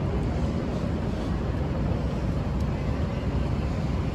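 Strong wind buffeting a phone's microphone in a sandstorm: a steady low rumble with no break.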